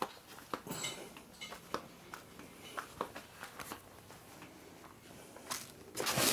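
Someone rummaging through a box of small parts and hardware, with scattered light clicks and clinks and a louder clatter near the end.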